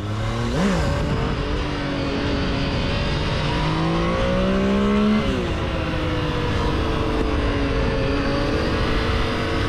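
Triumph Tiger motorcycle's three-cylinder engine under way, the revs climbing for a couple of seconds and dropping sharply at an upshift about five seconds in, with a shorter rise and drop just under a second in.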